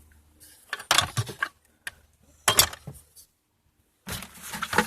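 Metal car parts and tools clattering and knocking as they are rummaged through and moved about, in three short bursts of handling noise.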